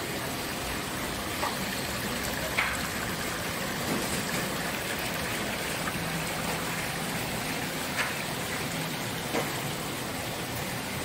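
Water splashing and bubbling in live lobster and crab tanks, with aerator and inflow pipes churning the water steadily. A few sharp clicks stand out.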